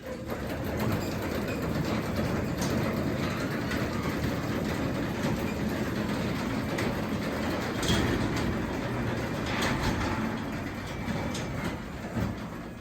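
Craftsman 3/4 hp belt-drive garage door opener closing the garage door: a steady mechanical rumble with scattered clicks as the door runs down, easing off near the end.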